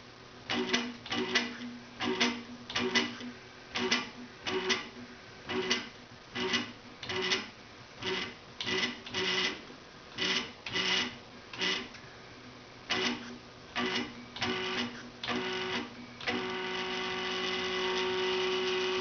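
A 425 oz-in stepper motor whining through a run of short start-stop moves, about one every three-quarters of a second, then running continuously with a steady whine for the last few seconds. Its Gecko G540 drive's trim is being turned up slightly to smooth the jerk the motor gives when it starts and stops at the lowest trim setting.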